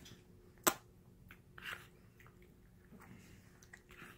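A baby chewing a mouthful of instant noodles, with soft wet mouth noises and one sharp click under a second in.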